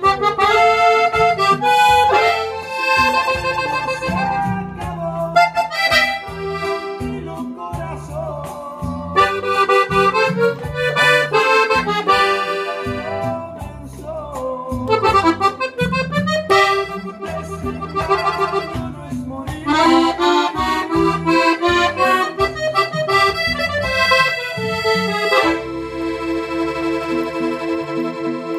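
Gabbanelli button accordion played solo: a quick melody on the treble buttons over pulsing bass notes, closing on one long held chord in the last few seconds.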